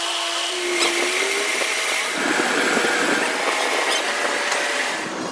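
A power tool running steadily, a continuous hiss with a faint thin whine over it, during work on a broken crankshaft pulley.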